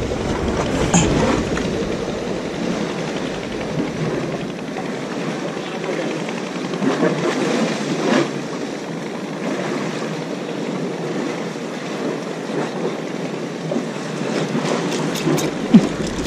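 Steady noisy wash of sea water and wind at the edge of a concrete breakwater, without any regular rhythm or engine tone.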